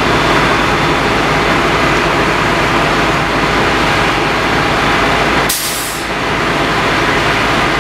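Fire truck engine running steadily, with a short hiss about five and a half seconds in.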